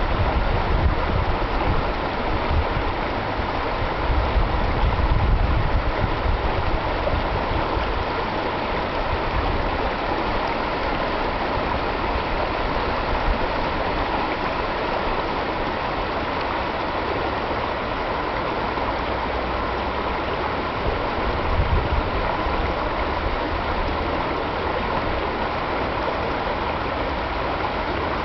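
Spring meltwater stream rushing steadily over rocks and small rapids, a full, continuous water noise. A few stronger low rumbles rise under it around five seconds in and again about twenty-two seconds in.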